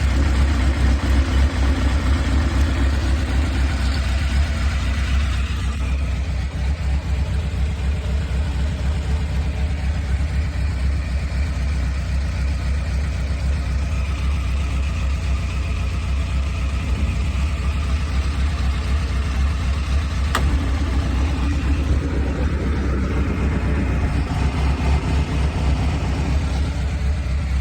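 1998 Honda CBR600F3's inline-four engine idling in neutral with a whirring noise that the owner is unsure is normal. The sound thins out about six seconds in and fills out again after a click about twenty seconds in.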